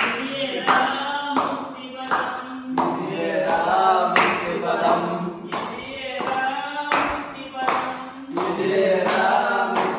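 Several men singing a Hanuman devotional song together, clapping their hands in a steady beat about twice a second.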